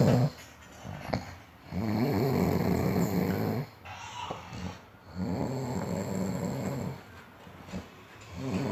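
Deep, rattling snoring in a steady rhythm. One snore ends just after the start, two full snores of about two seconds each follow, and another begins near the end, with quieter breathing in the gaps between them.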